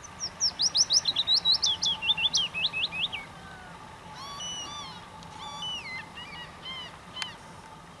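A small songbird singing: a fast run of sharp, down-slurred notes that falls steadily in pitch over about three seconds, followed by softer, varied chirps and a brief high note near the end.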